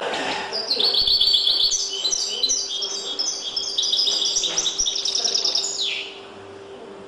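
European goldfinch (chardonneret) singing its trained limpio song: fast runs of repeated high notes and trills, ending with a steep falling sweep about six seconds in.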